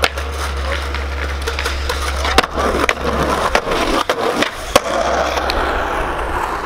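Skateboard wheels rolling over rough ground with a steady rumble, broken by sharp clacks of the board hitting the ground at the start, about two and a half seconds in, and near five seconds.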